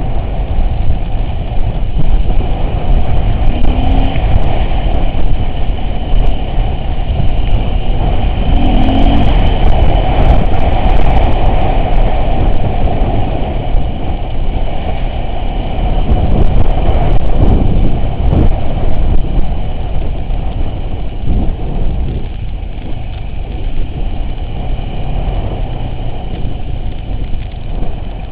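Off-road vehicle driving, its engine running under a heavy, continuous low rumble, with scattered clicks and rattles.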